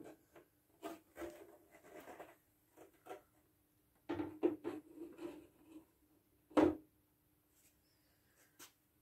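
Rigid plastic dust cover of a reel-to-reel tape recorder being lifted off and handled: a string of light rubs, clicks and knocks, with one sharper, louder knock a little past the middle.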